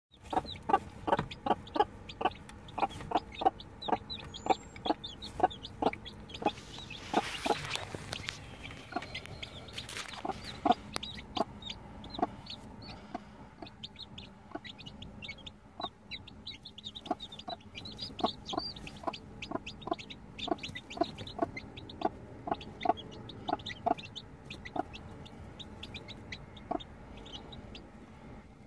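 Mother hen clucking in runs of short, repeated clucks, about two a second with pauses between runs, calling to her newly hatched chicks, with faint high chick peeps in between.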